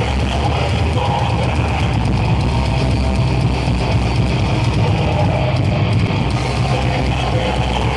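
Heavy metal band playing live, loud and steady: distorted electric guitars, bass and a drum kit.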